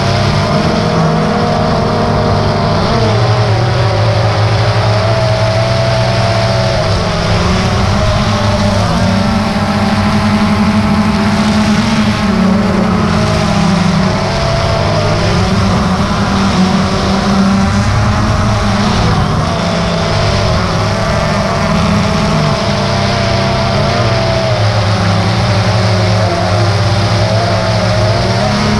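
DJI Phantom 2 quadcopter's electric motors and propellers whirring in flight, heard close up from the camera on board, the pitch slowly wavering up and down as the motor speeds change.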